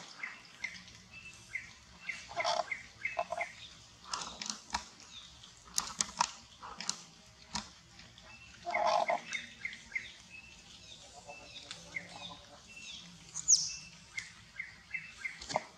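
Long-tailed macaque troop calling: short chirps keep repeating, with two louder calls about two and a half and nine seconds in. A brief sharp high cry, the loudest sound, comes about thirteen seconds in.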